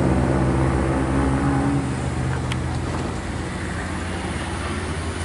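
Mitsubishi pickup truck's engine running under load on a steep hairpin climb, loudest as it passes close and then fading as it drives away. A short click about two and a half seconds in.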